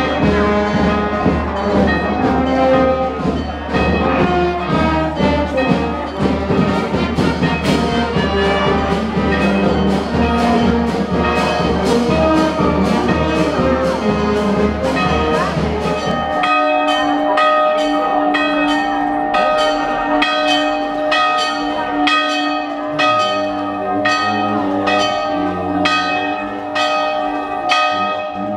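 Brass band music playing over church bells ringing in quick, evenly spaced strikes. About halfway through the band stops, leaving only the bells, about two strikes a second.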